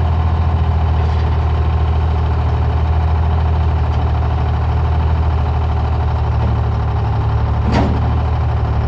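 Heavy engine running steadily at a low idle, with a sharp click near the end.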